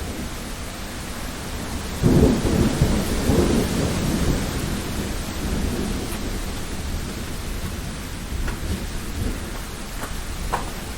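Thunderstorm: steady rain, with a sudden loud clap of thunder about two seconds in that rumbles on for a couple of seconds.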